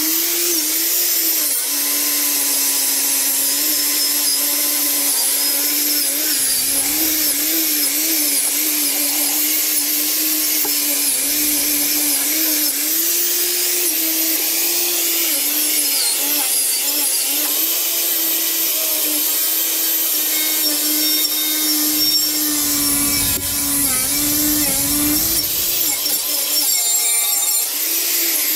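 Electric angle grinder running under load against the rusty metal frame of an old trolley, stripping rust. The motor's pitch wavers as the tool is pressed onto the metal, with a harsh scraping hiss over it and a few heavier low rumbles partway through.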